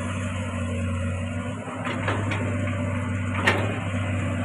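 Komatsu PC200 long-arm excavator's diesel engine running steadily, with a few knocks about two seconds in and a sharp clank about three and a half seconds in from the working bucket and arm.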